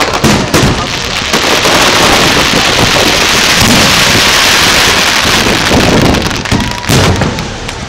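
Fireworks display: sharp bangs of shells bursting at the start, then several seconds of dense crackling like heavy rain as the stars break up, and more bangs near the end.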